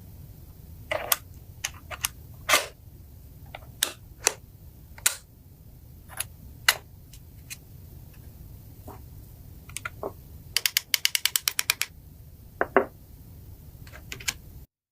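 Sharp metal clicks and knocks, scattered and uneven, from the parts of a restored Mauser K98 bolt-action rifle being handled, with a quick run of about a dozen clicks, some ten a second, near the end. A steady low hum lies under them.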